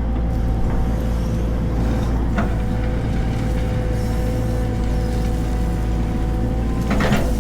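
Heavy diesel engine running steadily with a constant low drone and a steady whine, a brief burst of noise about seven seconds in.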